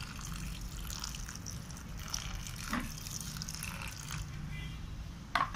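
Water poured from a plastic jug splashing and trickling into the soil of a potted snake plant, with a short sharp knock near the end.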